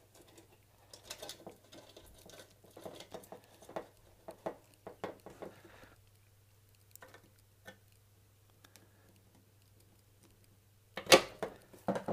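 Small clicks, taps and scrapes of fingers handling a bridge rectifier mounted in the back panel of a sheet-metal case, with a louder knock against the case near the end.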